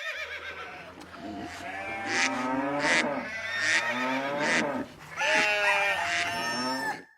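Farm animal calls, several overlapping cries with a wavering pitch, cut off abruptly near the end.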